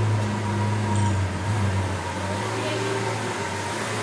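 Lamborghini Veneno Roadster's V12 idling with a steady low hum as the car is edged slowly up a loading ramp, the note wavering slightly a couple of times.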